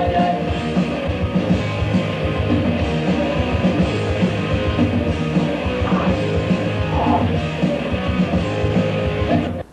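Rock music with a steady beat, cutting off abruptly near the end.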